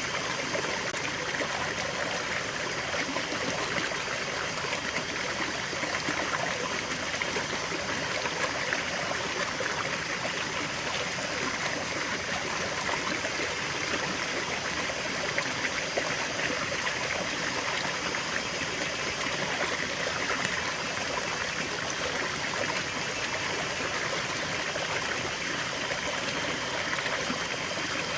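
Small stream flowing and trickling over stones, a steady babble of running water.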